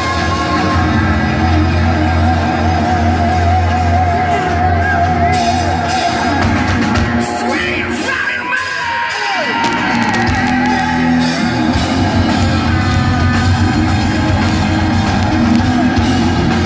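Live hard rock band playing loud through a PA: electric guitars, bass, drums and vocals. A held, wavering lead note sounds in the first few seconds, and the low end drops out briefly around the middle before the full band comes back in.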